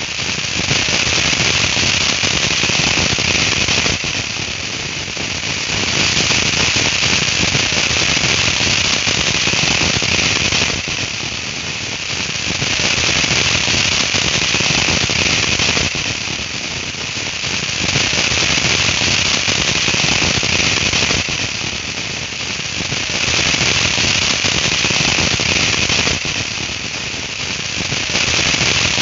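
Ground fireworks fountains crackling and hissing densely as they spray sparks. The crackle swells and eases in a regular cycle about every five to six seconds.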